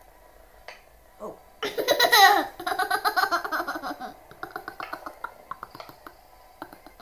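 A toddler laughing. A loud high squeal comes about a second and a half in, then a run of quick chuckles that taper off over the next few seconds.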